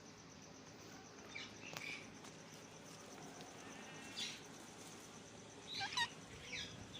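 Parrot giving short chirps at irregular intervals, a few scattered calls with a quicker cluster near the end, over faint background noise.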